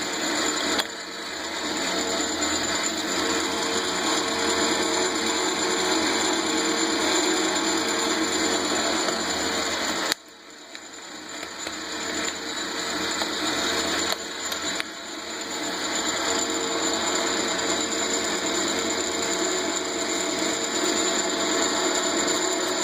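1941 South Bend 9-inch Model A metal lathe running off a VFD, its gear train and quick-change gearbox whirring and clattering steadily under load. The sound drops away abruptly about ten seconds in and builds back up over a couple of seconds, with two smaller dips a few seconds later.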